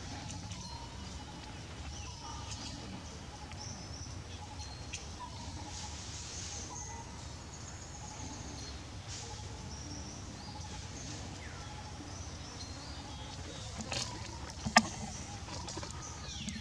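Outdoor ambience of faint birds chirping over a steady low rumble, with one sharp click near the end.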